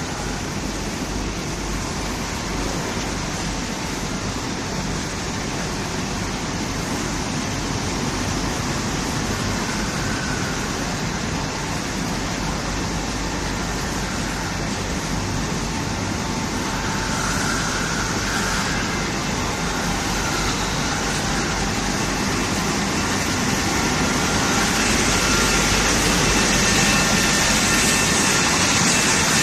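Industrial pass-through washer-dryer running, giving off a dense, steady machine noise that grows somewhat louder over the last few seconds.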